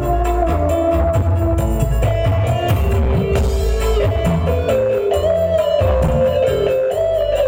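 Loud music with heavy bass and a drum beat under a melody of held notes that step up and down in pitch.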